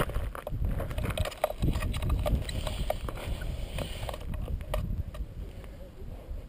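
Low rumbling wind and handling noise on a GoPro action camera's microphone, with irregular clicks and crackles during the first four seconds that then die down.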